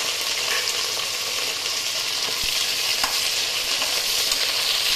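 Curry leaves and whole spices sizzling in hot oil in a pressure cooker: a steady, fairly loud frying hiss, with a few light clicks of a spoon stirring.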